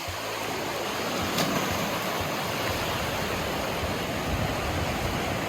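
Steady rushing noise of ocean surf washing on the beach, with a single short click about a second and a half in.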